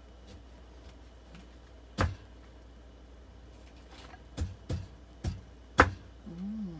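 A handful of sharp knocks and clicks, the loudest about two-thirds of the way through, over a low steady hum; a brief hummed voice near the end.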